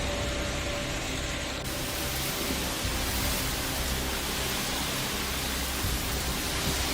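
Steady rushing noise with no distinct events, which suddenly turns brighter and hissier about one and a half seconds in.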